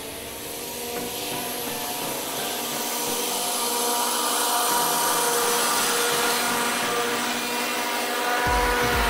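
Scag zero-turn riding mower running with its blades engaged while cutting grass: a steady engine drone and blade whine that grows louder as it approaches, with a deep rumble joining near the end as it passes close by.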